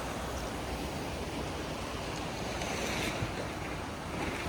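Steady rushing of a river flowing beneath a bridge, with wind rumbling on the microphone.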